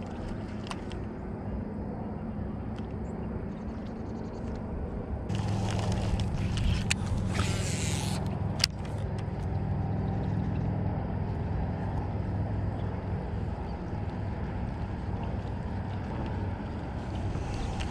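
Minn Kota electric trolling motor running with a steady hum that grows louder about five seconds in. A few seconds of rushing hiss come with the step up, and a single sharp click sounds near the middle.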